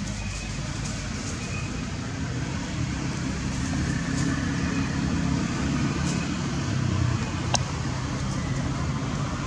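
Steady low outdoor rumble that grows slightly louder a few seconds in, with a single sharp click about seven and a half seconds in.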